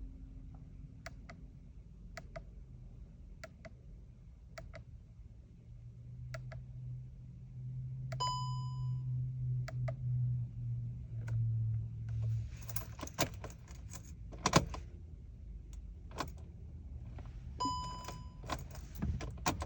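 A 2014 VW Jetta GLI that won't start: a steady ticking about once a second and a dashboard warning chime, with a low hum for several seconds in the middle. After the hum, keys rattle with one loud knock, and the chime sounds again near the end.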